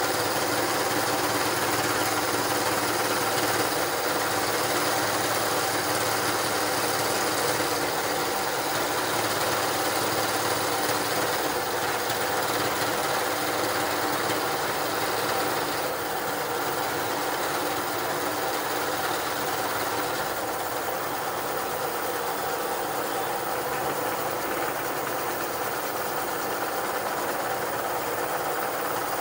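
Motor-driven meat grinder running steadily with a hum and several steady whining tones. It gets slightly quieter about halfway through.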